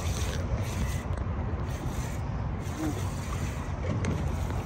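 Steady low rumble of wind and water noise around a small boat, with faint voices a few seconds in.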